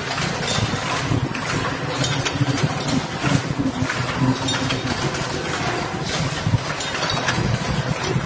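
Several tea bag packing machines running together: dense, irregular mechanical clattering and clicking over a steady low hum.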